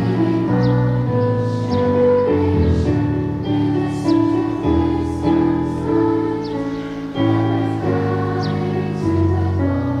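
A large gathering of students singing the school song together like a choir, in slow, held notes that change about once a second.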